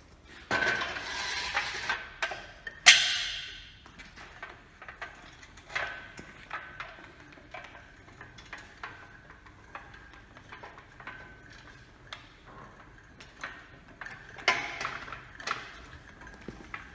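Metal parts of a chainsaw sawmill frame clanking and rattling as a square metal upright post is set into the steel carriage: a rattle near the start, one loud ringing clang about three seconds in, then scattered light clicks and knocks with another cluster of knocks near the end.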